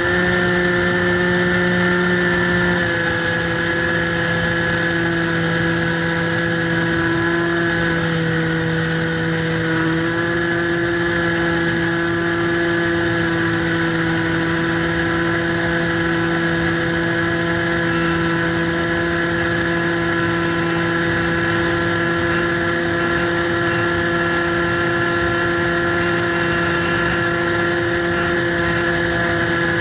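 Motor and propeller of a radio-controlled FPV model plane running steadily, heard from the onboard camera over a haze of rushing air. The pitch drops slightly about three seconds in, dips again near eight seconds, and comes back up around ten seconds.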